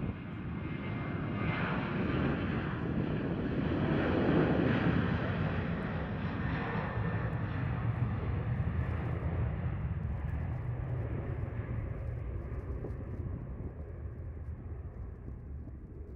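A Boeing 737's twin jet engines at takeoff thrust during the runway roll. The sound swells to its loudest about four seconds in as the jet passes, then fades as it draws away, its higher pitches dying off first.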